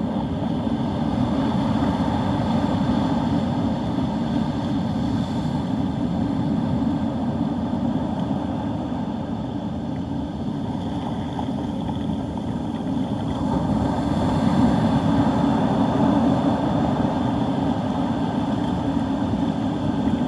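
Wind rumbling on the microphone over heavy surf breaking on the beach, growing a little louder about two-thirds of the way through.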